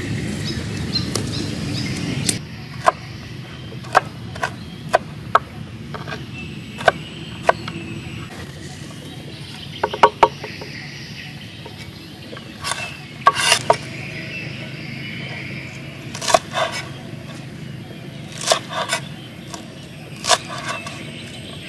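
Cleaver chopping garlic and then green onions on a wooden cutting board: irregular sharp knocks of the blade striking the board, singly and in short quick runs. For the first two seconds a steadier noise plays under it, then cuts off.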